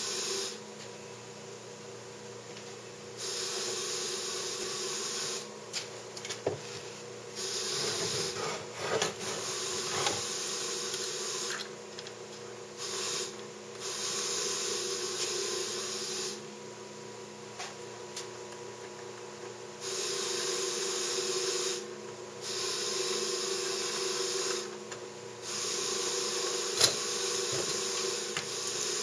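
Homemade wooden glass-printer rig being worked by hand. A hissing mechanical run starts and stops in stretches of two to four seconds over a steady low hum, with a few wooden knocks and clicks.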